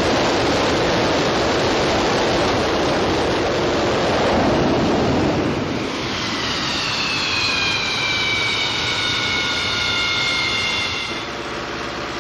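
MiG-23BN's jet engine, a Tumansky R-29B-300 turbojet, running on a ground test run: a loud steady rush, joined about halfway by high whining tones that slowly fall in pitch. The whine stops and the sound drops a little near the end.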